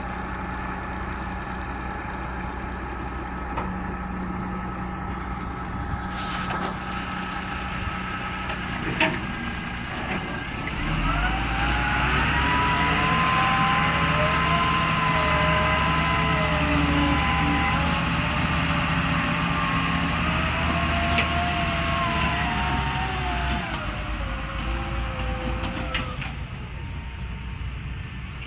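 Excavator's diesel engine running steadily, then working harder for about twelve seconds with a whine that rises and falls as the hydraulics are worked, before easing back near the end. A couple of small knocks come early on.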